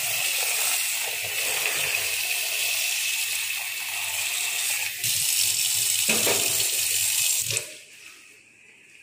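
Kitchen tap running into a steel pot of eggs held in a steel sink, a steady splashing stream as the pot is filled to boil the eggs. The flow stops suddenly shortly before the end as the tap is shut off.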